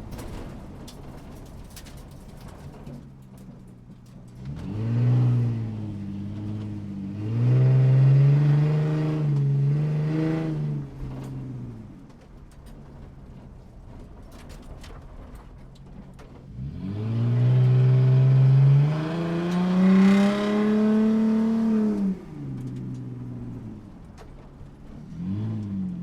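Motorcycle engine running at a steady idle and revving up and down: a short rev about five seconds in, a longer one from about seven to eleven seconds, another long one from about seventeen to twenty-two seconds, and two quick blips near the end.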